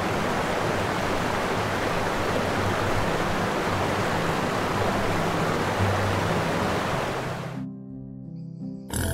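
A loud, steady rushing hiss over background music, cutting off suddenly about seven and a half seconds in, leaving the music alone.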